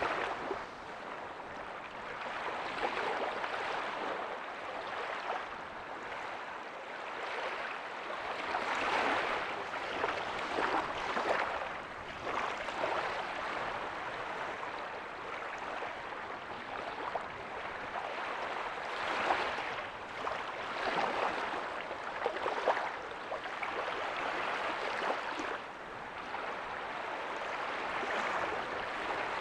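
Ocean waves breaking softly on a beach: a continuous wash of surf that swells and eases every few seconds as each wave comes in.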